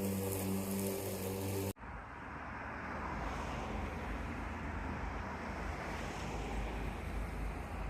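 A steady hum at a fixed pitch cuts off abruptly a little under two seconds in. After that comes a steady outdoor rumble of wind or traffic noise.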